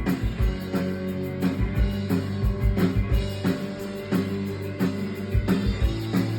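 Rock band music: a drum kit with a prominent kick drum, under held bass and electric guitar notes.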